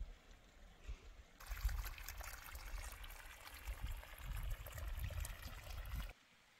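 Running mountain water splashing and pouring, with a low rumble underneath. It starts suddenly about a second and a half in and cuts off suddenly near the end.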